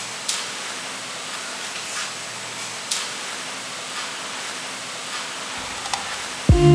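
Steady hiss of background noise with a few faint clicks. Loud music comes in right at the end.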